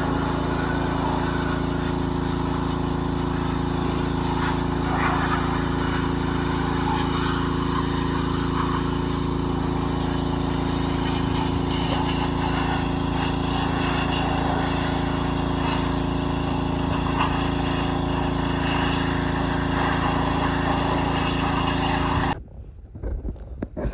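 Small engine running steadily at constant speed, then cutting off suddenly near the end.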